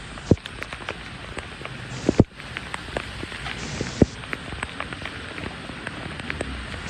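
Heavy rain falling on water and hard surfaces, a steady hiss broken by scattered sharp knocks and splashes, the loudest about two and four seconds in.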